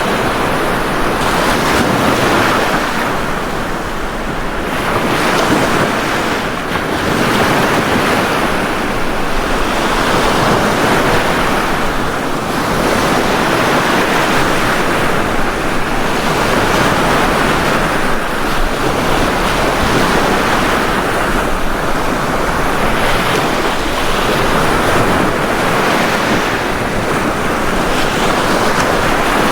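Ocean surf washing onto a beach: a continuous rush of breaking waves that swells and eases every few seconds.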